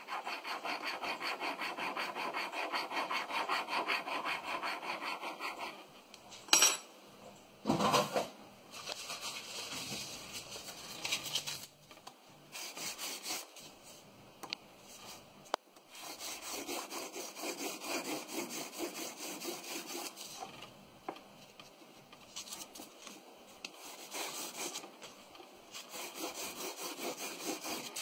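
A polished steel burnisher, an adapted old burr shaft, is rubbed hard back and forth over a platinum ring in fast strokes, about four a second, pushing metal into small pits in the surface. The rubbing comes in spells that stop and start, and two sharp knocks, the loudest sounds, fall in a pause a few seconds in.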